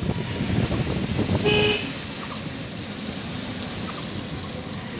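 A vehicle horn gives one short honk about a second and a half in, over rumbling road and wind noise from a moving vehicle. The rumble eases after the honk.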